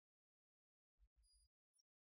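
Near silence: the sound track is all but empty, with only a few very faint short blips about a second in.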